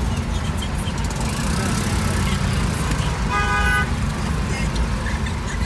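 Steady low rumble of slow city traffic heard from inside a car's cabin, with a vehicle horn sounding once for about half a second, a little past the middle.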